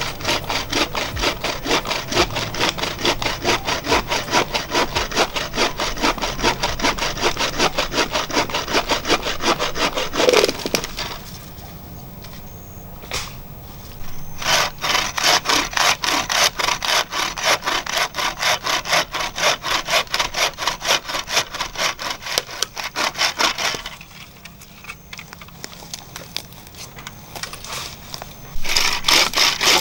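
Handmade bucksaw cutting through wood in quick, even back-and-forth strokes. The sawing stops for a few seconds about ten seconds in and again after about twenty-four seconds, then starts again near the end.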